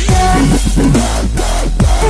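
Electronic dance music with a heavy bass that slides down in pitch, under synth melody lines.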